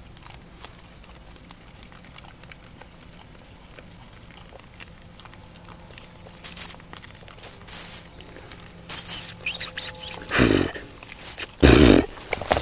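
Young wild boar feeding: faint rustling and crunching at first, then from about six seconds in, sharp high squeals, and near the end two loud squealing cries.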